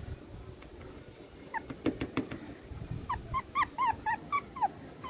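Shih Tzu puppy whimpering in short, high yips. They come in a quick series of about four a second, starting a little past halfway.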